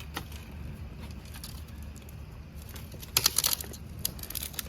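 Campfire crackling and popping, with a quick run of sharp snaps about three seconds in and a few more near the end, over a steady low rumble.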